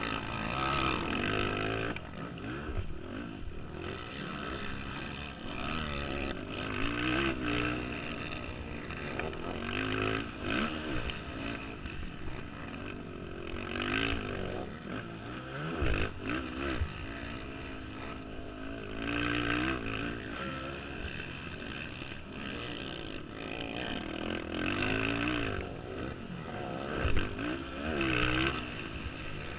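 Several racing ATV (quad) engines revving hard, their overlapping pitches rising and falling as they accelerate and back off around the motocross track. A couple of sharp knocks stand out, one about halfway through and one near the end.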